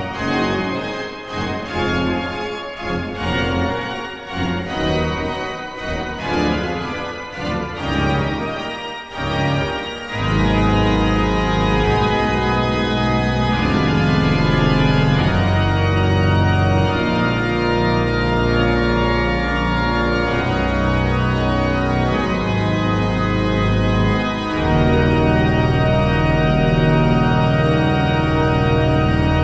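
Background music: short, choppy chords for about the first ten seconds, then louder, long held chords.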